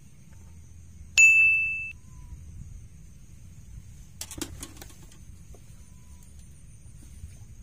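A small bite bell on a fishing rod rings once with a clear, high ding that fades within about a second, the sign of a fish taking the bait. A few soft clicks and rattles follow about four seconds in.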